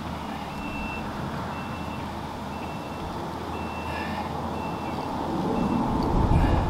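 A vehicle's reversing alarm beeping about once a second over a low engine rumble. A louder low rumble swells in near the end.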